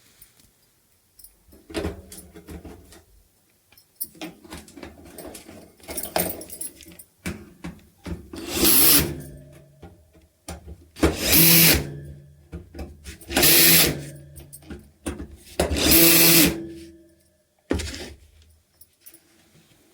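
Handheld power drill running in four short bursts of about a second each, with smaller clicks and knocks of handling between them.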